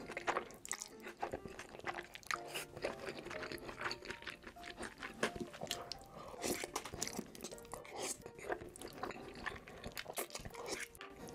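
Close-miked eating sounds: wet slurping and chewing of thick noodles in a creamy cheese sauce, with many sharp, quick mouth clicks and smacks. Soft background music plays underneath.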